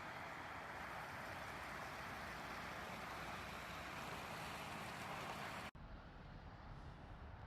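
Steady outdoor rushing noise that cuts off abruptly almost six seconds in, giving way to a quieter low rumble.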